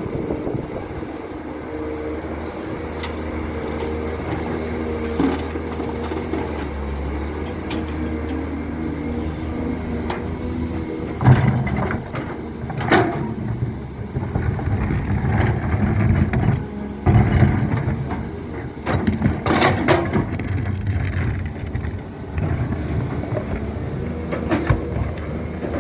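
Excavator's diesel engine running steadily. From about eleven seconds in come a series of irregular clanks and knocks of the machine digging.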